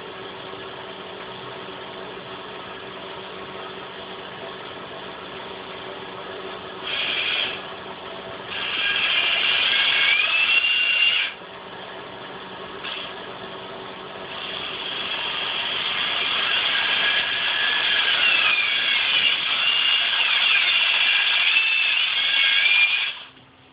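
Cordless power tool motor, run off a laptop charger wired to its battery terminals, started and stopped in bursts: a short burst about seven seconds in, a run of about three seconds, then a long run that builds for about nine seconds and stops. A squealing whine that wavers in pitch rides over the motor during the longer runs.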